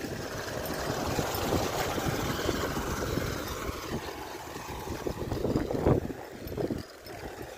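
Wind buffeting the microphone while riding, with a motorcycle engine passing close by and pulling away ahead in the first few seconds, its pitch slowly falling.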